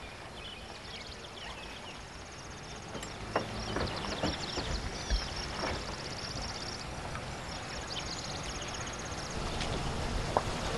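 Outdoor ambience: a steady background hiss with birds chirping and trilling, and a few sharp knocks, the loudest about a third of the way in and near the end.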